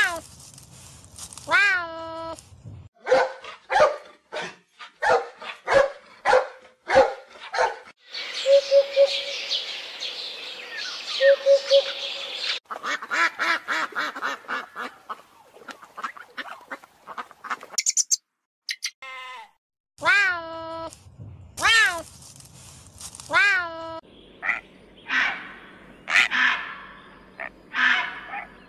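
A run of different animal calls, one after another. A serval meows twice at the start, and similar meows come again about 20 seconds in. In between and near the end are other bird and animal calls, some short and rhythmic, some harsh.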